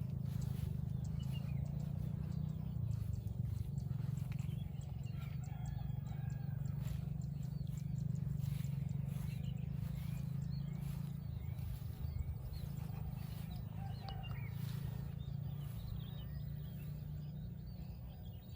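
Small birds chirping faintly over a steady low rumble, with the footsteps of someone walking.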